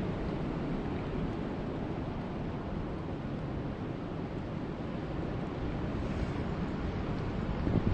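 Steady rain ambience: a continuous rushing hiss over a deep low rumble, without a break or a distinct drop.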